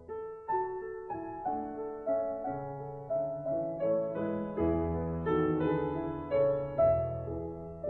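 Slow piano music, with notes and chords struck about twice a second and left to fade.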